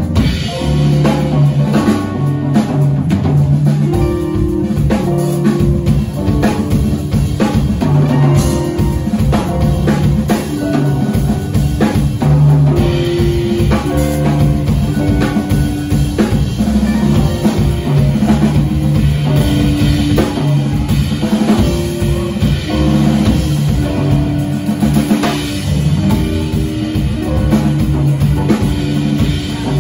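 Jazz drum kit solo, with busy strokes on the drums and cymbals over a repeating figure of low notes from the upright bass and guitar.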